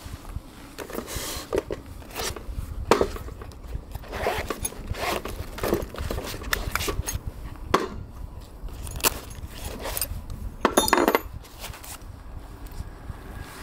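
Metal cookware and utensils being handled: irregular clinks and clatters as pieces are picked up and set down, with a brief ringing metallic clatter near the end.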